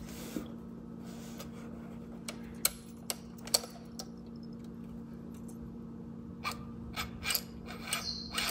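Light metallic clicks and taps of brass clock parts as an Atmos 528 movement is worked loose and lifted off its frame by hand, scattered at first and coming thicker in the last couple of seconds, over a steady low hum.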